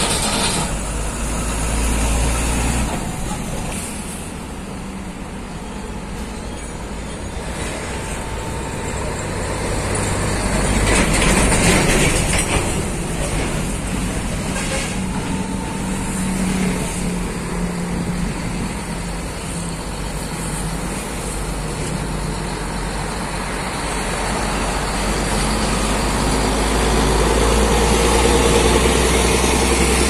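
Scania 124G 400's six-cylinder diesel engine running under load as it hauls a lowbed trailer past at close range, with tyre and road noise from other traffic. A louder rush comes about twelve seconds in, and the engine rumble grows louder toward the end as the truck draws level.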